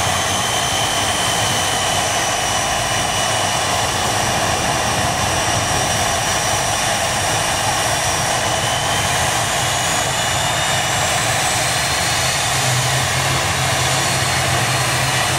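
Airliner's engines running steadily with a high whine that sinks slightly in pitch and then rises again about two-thirds of the way through; a low hum grows stronger near the end.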